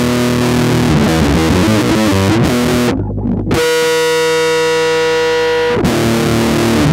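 Electric bass guitar through distortion playing a fast metal riff of quick picked notes; about three seconds in the riff breaks off briefly for a long held note, then the quick notes resume.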